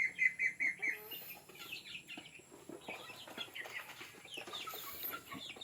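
Backyard chickens clucking and peeping: a fast run of short high peeps in the first second, then softer scattered clucks and chirps.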